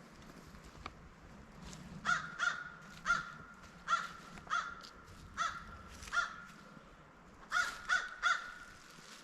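A bird calling repeatedly outdoors: about ten short, evenly pitched calls starting about two seconds in, some coming singly and some in quick pairs and triplets.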